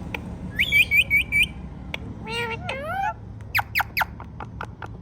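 Indian ringneck parakeet calling: a quick run of four short chirping notes, a warbling phrase that glides up and down, then three sharp falling squawks, followed by faint clicking.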